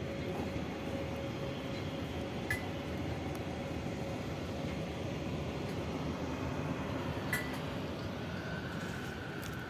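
Renfe 449 series electric multiple unit rolling slowly through the station, a steady running rumble with a faint hum that fades after about six seconds. Two short clinks come at about two and a half and seven seconds in.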